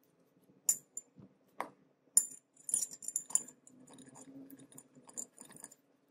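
Small steel shotgun parts clinking and clicking against each other as they are worked apart by hand. A few sharp metal clicks in the first two seconds, then a busier run of clinks, and then softer scraping and rattling until near the end.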